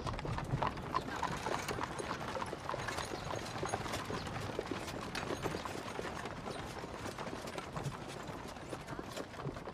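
Several horses' hooves clip-clopping on a paved street: a dense, uneven run of knocks that goes on without a break.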